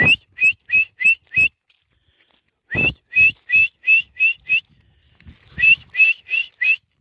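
A person whistling to call dogs: three runs of short, quickly rising whistle notes, five, then seven, then four.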